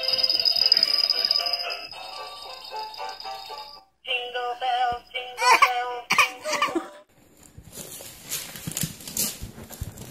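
A plush musical Christmas toy plays an electronic tune with synthetic singing. About halfway through, a baby breaks into crying. Near the end there is rustling and crinkling, like wrapping paper being handled.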